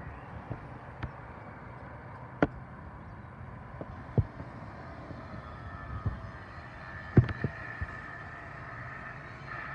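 Outdoor background noise: a steady low rumble broken by a handful of sharp knocks at irregular intervals, with a faint steady high hum joining about halfway through.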